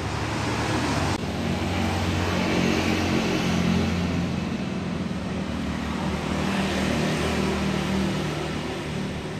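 A motor vehicle engine and road traffic noise: a steady low drone that grows a little louder in the middle and eases off near the end.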